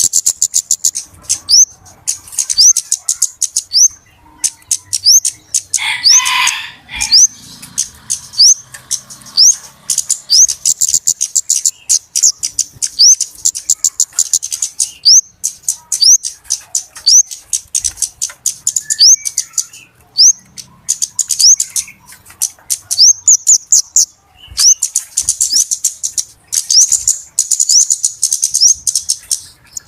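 Flowerpeckers (kemade) calling in a busy run: rapid, very high-pitched ticking chips mixed with short upward-sweeping notes, coming in bursts with brief pauses. A harsher, lower call sounds briefly about six seconds in.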